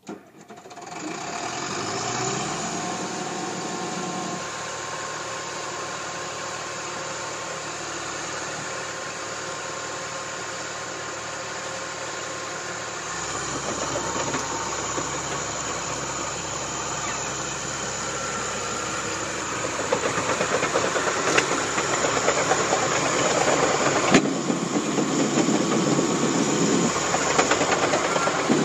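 Caterpillar D4H LGP dozer's diesel engine starting up, its pitch rising as it comes up to speed, then running steadily. It gets louder and rougher with clatter from about two-thirds in.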